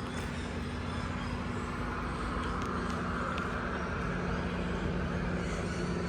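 Street traffic: a steady low engine hum, with a vehicle's tyre and engine noise swelling past about three to five seconds in.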